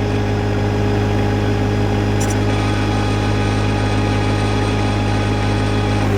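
John Deere 1025R compact tractor's three-cylinder diesel engine running steadily at a constant speed.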